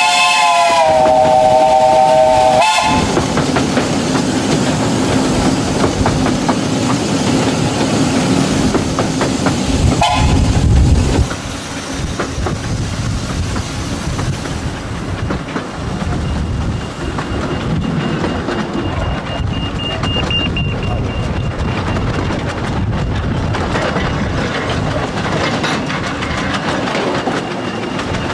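The steam whistle of a 15-inch gauge 2-6-2 locomotive sounds a chord for a few seconds at the start, then gives a short toot about ten seconds in, over the steady running of the train. From about eleven seconds on the train is heard running more quietly, its carriages rattling along the track.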